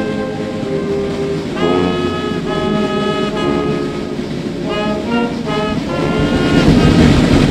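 Brass band playing slow, held chords that change every second or so, with a rushing noise building up underneath near the end.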